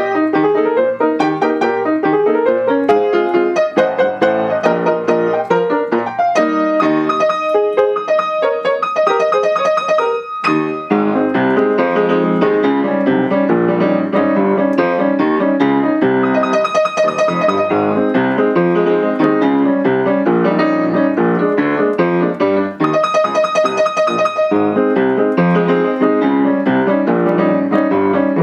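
Solo piano playing a brisk, busy march-style tune with many quick notes, with a brief break about ten seconds in.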